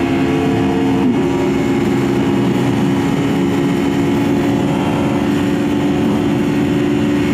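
Aprilia RSV4 RF's V4 engine running steadily at freeway speed over a constant rush of wind noise, its note dipping briefly about a second in before settling again.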